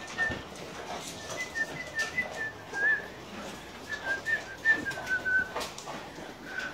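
A dog whining: a thin, high, wavering whine that keeps breaking up and slowly falls in pitch, over scattered clicks and knocks of dogs eating dry food from steel bowls.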